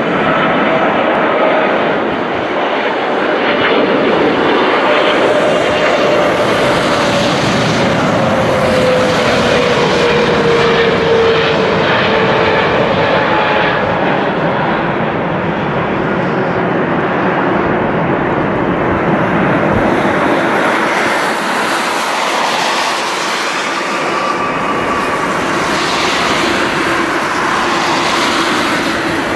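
Steady jet-engine noise of a Boeing 777-300 airliner coming in to land. A whine in the engine noise falls slowly in pitch as the plane passes.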